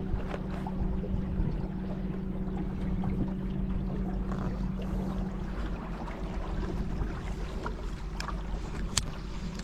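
Water and wind noise on a kayak on the river. A steady low hum fades out a little over halfway through, and a few sharp clicks come near the end.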